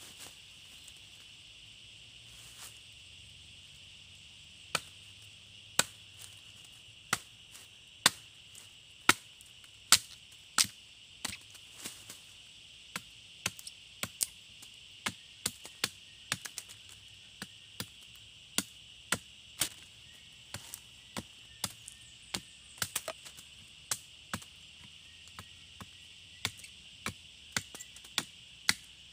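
Machete blade chopping into a wooden pole: dozens of sharp, dry strikes starting about five seconds in, about one a second at first, then quicker and uneven. A steady high insect drone runs behind.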